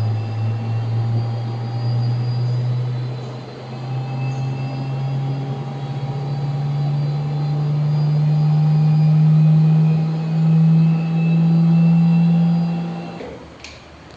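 Thermo Scientific Heraeus Multifuge X3R centrifuge spinning up: a loud motor-and-rotor hum rising slowly and steadily in pitch, with fainter whining tones above it. It stops sharply near the end.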